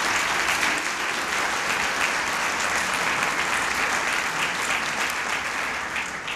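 Audience applauding, a dense, steady round of clapping that dies away near the end.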